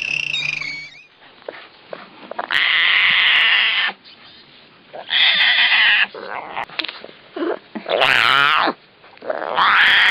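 An animal calling loudly four times, each call about a second long, some arching up and then down in pitch.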